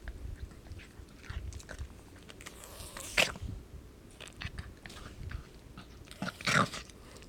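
A mixed-breed dog eating, chewing and crunching her food in irregular bites, with two louder noises, one about three seconds in and a longer one near the end.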